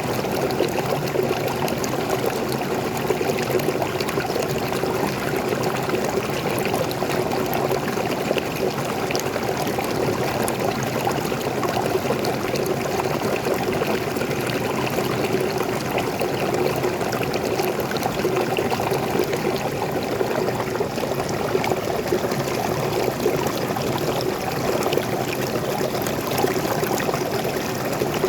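Small forest waterfall, fresh water pouring and splashing steadily.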